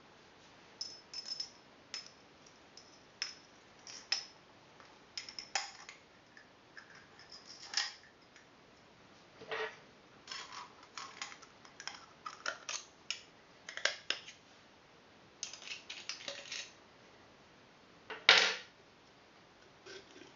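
Small plastic and metal parts of a Silverback SRS airsoft rifle's bolt clicking and clacking as they are taken apart by hand and set down on a wooden workbench: scattered light taps, with one louder knock near the end.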